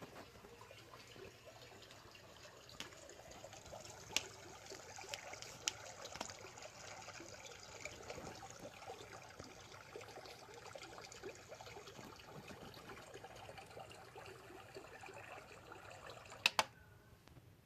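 Faint rustling and scratching with a few light clicks: a small kitten pawing at and playing with flip-flops. It stops after two sharp clicks near the end.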